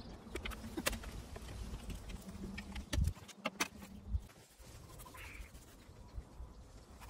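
Scattered light clicks and knocks of a hand tool and small metal fittings being handled on a camper-shell door, with a dull thump about three seconds in.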